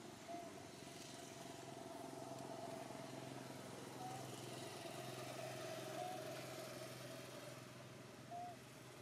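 Faint steady drone of a distant motor, a low hum under a higher held tone that flicks up briefly four times.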